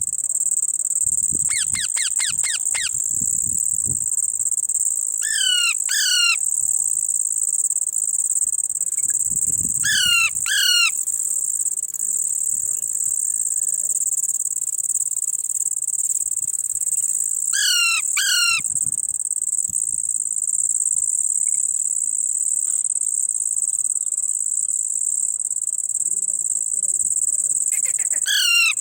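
A parrot calling, with a quick run of chirps near the start and then short calls in pairs, several seconds apart, over a steady high-pitched insect drone of crickets.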